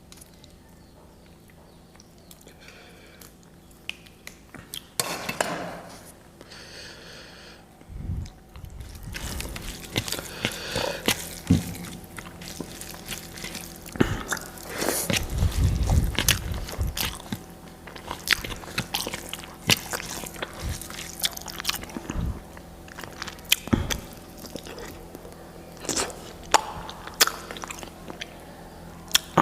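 Close-up eating sounds: a person chewing and biting food with wet mouth smacks and short clicks. It is quiet for the first several seconds, then the chewing turns dense and steady about a third of the way in.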